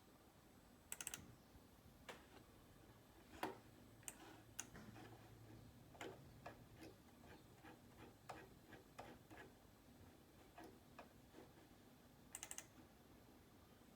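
Faint, irregular clicks and taps, with a quick rattling cluster of clicks about a second in and another near the end.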